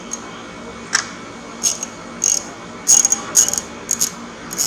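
Short, irregular metallic clicks, bunched more closely in the second half, as the clutch cable's barrel adjuster at the handlebar lever is turned.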